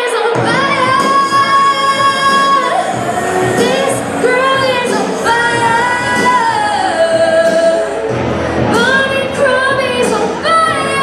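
A woman singing into a microphone, holding long notes with a wavering pitch, over acoustic guitar accompaniment; about six seconds in one note slides down.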